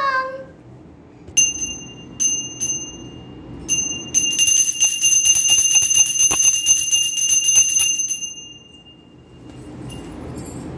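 Small hand-held puja bell (ghanti) struck a few single times, then rung rapidly for about four seconds before its ringing fades away.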